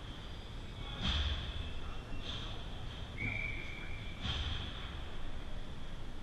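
Ice hockey rink ambience: several short scrapes of skate blades on the ice, with a brief steady high tone about three seconds in.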